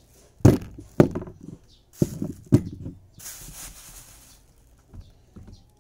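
Carrots being set down on a table one after another: four knocks, the last two close together, followed by a short rustle.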